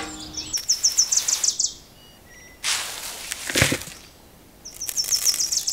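Sand pouring out of a small metal bucket: a hiss lasting about a second near the middle, with a knock inside it. Birds twitter with rapid high chirps before and after the pour.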